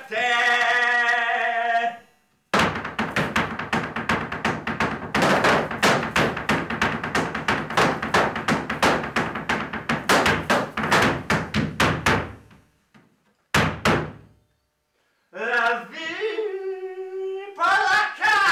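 A voice singing held notes, breaking off about two seconds in. Then about ten seconds of fast, rhythmic thudding knocks, two more knocks, a short silence, and singing with a wavering pitch again near the end.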